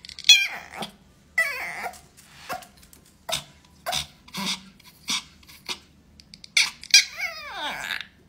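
Pomeranian vocalizing: a run of short high yips about every half second, mixed with a few longer whiny cries that slide down in pitch.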